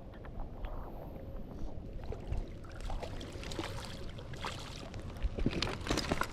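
Low water sloshing with scattered small clicks and knocks, more frequent in the second half.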